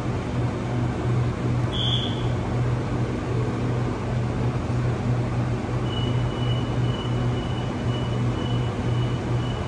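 Steady low hum from a stationary double-deck electric passenger train standing at an underground platform. Faint short high beeps repeat over the last few seconds.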